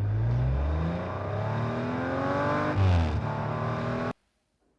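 An engine revving, its pitch climbing through the middle, then cut off abruptly about four seconds in.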